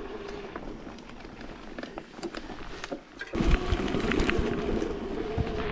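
Electric mountain bike riding a rocky trail: the motor's steady whine over tyre noise and the sharp clicks of stones and gear. A little over three seconds in it gets suddenly louder, with wind rumbling on the microphone.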